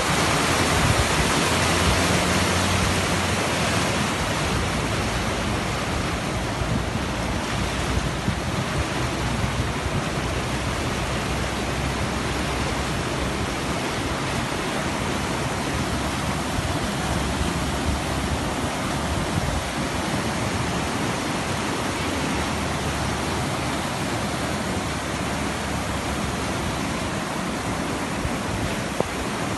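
Muddy floodwater rushing down a wadi in spate: a steady, loud rush of churning water, a little louder in the first few seconds.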